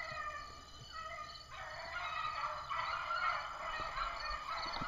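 Pack of beagles baying as they run a rabbit: a few voices at first, then many overlapping voices joining about a second and a half in.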